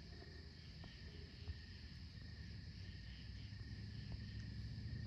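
Crickets chirping, a faint steady chorus with a soft pulsing beat a few times a second, over a low rumble.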